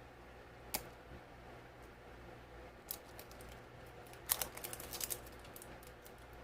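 Toy packaging being handled and opened by hand: a sharp click about a second in, another near three seconds, then a quick run of crinkles and snaps lasting about a second.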